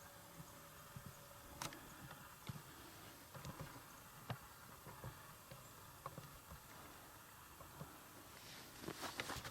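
Near silence outdoors, with faint scattered ticks and rustles, a few of them sharper clicks; denser rustling builds near the end.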